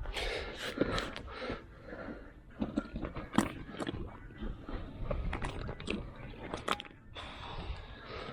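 Irregular rustling and scraping, broken by many sharp clicks and knocks, from gear being handled by hand.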